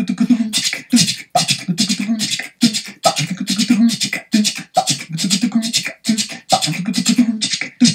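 A cappella vocal percussion in a steady merengue rhythm: mouth-made drum strokes and scraping 'chichi' sounds imitating tambora and güiro, with the drum-skin (cuero) part being voiced over the looped groove.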